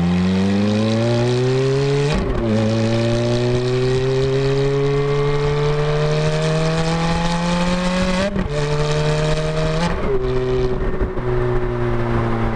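2006 Ferrari F430's 4.3-litre V8 accelerating, its pitch climbing through the gears, with quick upshifts of the paddle-shifted automated manual gearbox about two seconds in and about eight seconds in. After about ten seconds the engine note settles and falls slightly as the throttle eases.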